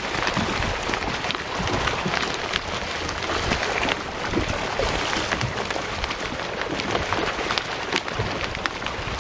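A school of hybrid and white bass feeding at the surface all around, making a constant patter of many small splashes, like rain on the water.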